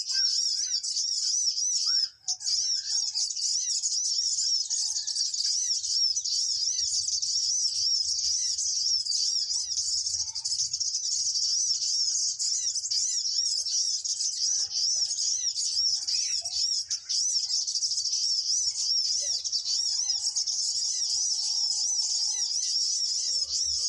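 High-pitched bird chirping, a rapid unbroken run of repeated short chirps that carries on steadily.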